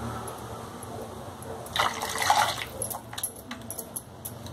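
Milk poured from a glass bowl into a pan of thick milk mixture while a wooden spatula stirs it: liquid sloshing and splashing, louder for about a second near the middle, with a few light taps near the end.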